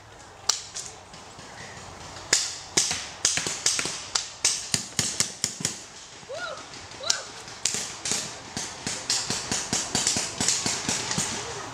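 Paintball markers firing during a game: sharp pops in irregular volleys, some in quick strings of several shots a second.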